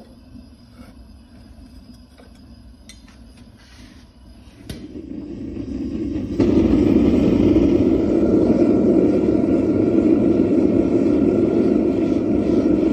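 Gas burner of a small foundry furnace lighting with a click about five seconds in, its rush building and then jumping to a loud, steady rush as the gas is turned up, to melt a crucible of bronze scrap.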